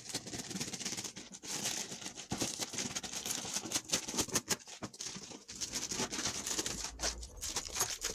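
Shipping packaging being torn open and handled by hand: a continuous run of crinkling, rustling and small crackles and clicks.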